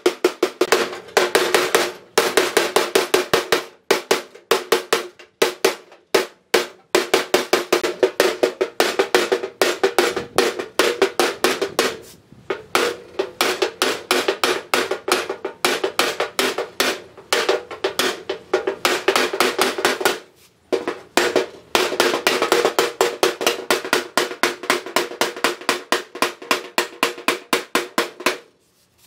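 Hammer beating a rusted sheet-steel car body panel: rapid, rhythmic metal-on-metal blows, several a second, each with a short metallic ring, stopping briefly a few times.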